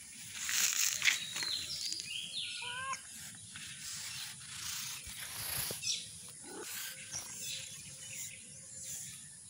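Kittens mewing in short, high calls, several in the first few seconds and fewer later, over a steady high-pitched insect drone.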